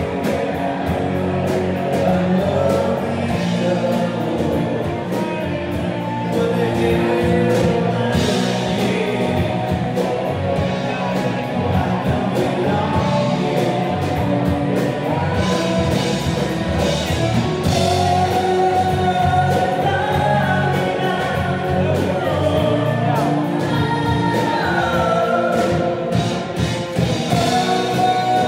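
Rock band playing live: a man singing lead over electric guitars, bass guitar and drums with a steady beat.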